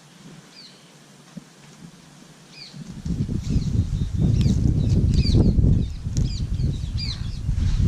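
Small birds chirping: short high chirps repeated about once a second. About three seconds in, a loud, irregular low rumble with no steady pitch or rhythm sets in and stays loudest to the end.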